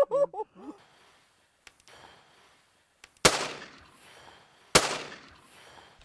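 Shotgun fired twice at flying birds, two sharp reports about a second and a half apart, each with a short echoing tail.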